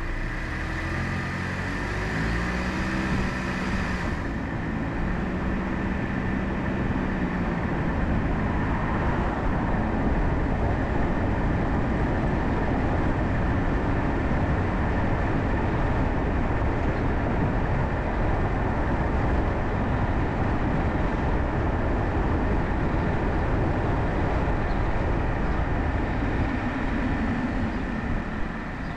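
Car pulling away from a stop and accelerating, its engine note rising over the first several seconds, then steady engine and tyre noise at street speed that eases off slightly near the end.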